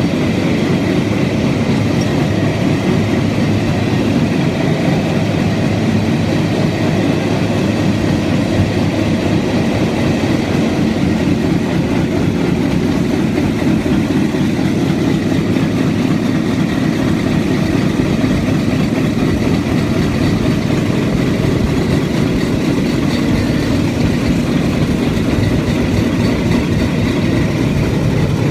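Steel wheels of a pedal-powered rail bike rolling along the rails, a loud, steady rumble that doesn't let up.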